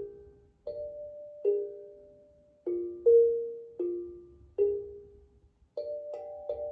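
Steel tongue drum played note by note in a slow, meditative melody. Each struck tongue rings out and fades slowly. About five seconds in, the strokes come quicker and the notes overlap.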